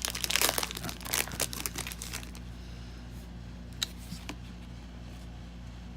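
Foil Pokémon booster pack wrapper being torn open by hand, crinkling and ripping for about two seconds, then a couple of small clicks over a faint steady hum.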